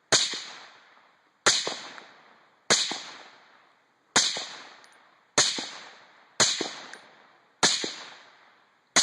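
Mega Arms MA-TEN .308 semi-automatic rifle with an OPS Inc. 12th Model suppressor firing about eight evenly paced shots, roughly one every 1.2 seconds, each sharp crack trailing off in a long echo, as the magazine is emptied.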